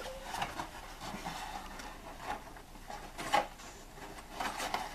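Papercraft (pepakura) paper helmet rustling and scraping as it is pulled down over a head and shifted into place by hand, in irregular crinkles and small taps, the sharpest a little past three seconds in.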